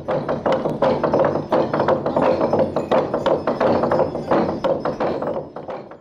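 Percussion played fast: a dense, uneven run of sharp strikes that stops near the end.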